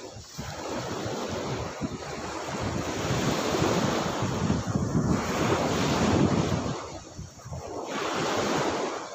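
Lake waves breaking and washing onto the shore, with wind buffeting the microphone. The surf swells and eases as each wave comes in, loudest in the middle.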